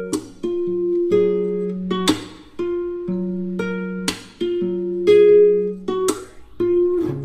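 Background instrumental music: plucked-string notes with a sharp percussive hit about every two seconds.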